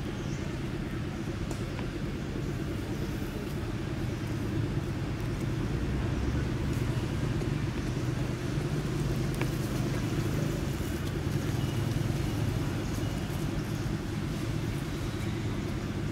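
Steady low mechanical rumble with a faint hum running under it, and a few light clicks.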